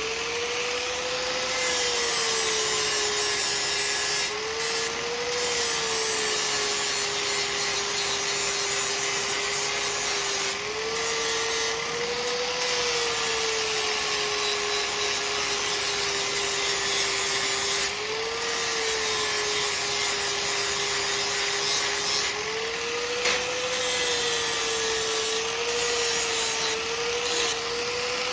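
Angle grinder grinding steel, bevelling and cleaning up a 1/4-inch steel driveshaft-loop piece to prepare it for welding. The motor whine sags each time the disc is pressed into the metal and rises again when it is eased off, several times over, under a steady hissing scrape that breaks off briefly now and then.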